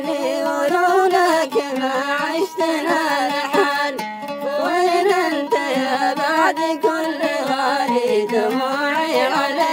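Mishqasi-style Arabic song: a male voice singing long, sliding lines over plucked string accompaniment.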